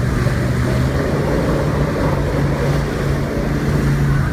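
Motorboat engine running steadily at towing speed, a constant low hum, with water churning in the wake behind the boat.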